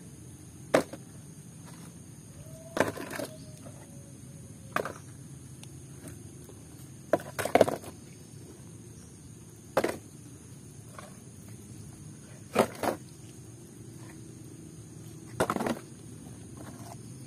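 Sharp clacks and knocks of muddy toy vehicles being picked up and set down as they are gathered, one every two to three seconds, over a steady low background noise.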